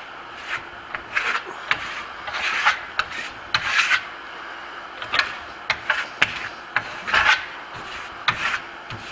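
Venetian plaster trowel scraping across a thin, tight coat of Grasello lime plaster in a string of irregular strokes, a couple of them longer passes. It is the burnish or compression coat, with the blade pressing the plaster down smoother and more reflective.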